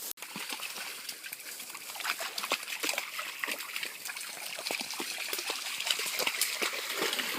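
Puppy splashing in shallow river water: many small, irregular splashes over a steady trickle of water.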